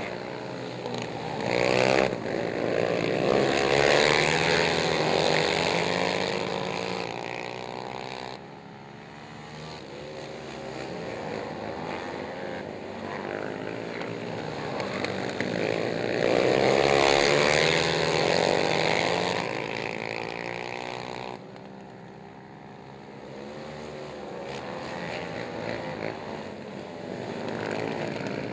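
Several racing ATVs' engines revving hard and backing off through the turns, their pitch wavering up and down. The sound swells twice as the pack comes close, and each time drops off abruptly soon after.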